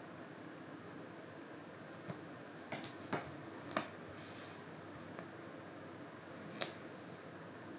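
A cat moving about on a wooden floor around a fleece mat, making a handful of sharp clicks and taps over a steady room hiss; the loudest two come about three to four seconds in, and one more comes near the end.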